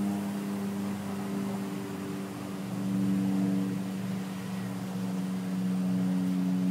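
Background music: low held tones that change pitch in steps, once about three seconds in and again near the end.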